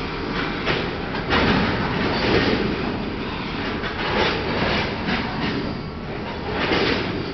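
Freight train rolling slowly through a rail yard: a steady rumble of moving cars with irregular louder surges and clanks every second or so.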